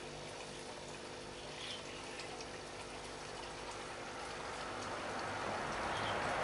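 Steady trickling, splashing water that grows louder toward the end.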